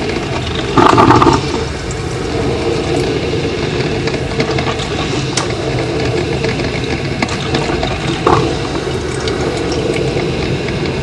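Drip coffeemaker brewing: a steady watery hiss and bubbling as the heater pushes hot water through. A louder sputtering burst comes about a second in, and a shorter one near the end.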